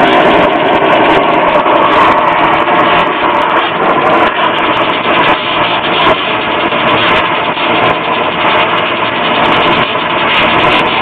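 Brazing torch flame hissing steadily against the copper stubs of a new reversing valve as they are heated to braze them into the refrigerant lines.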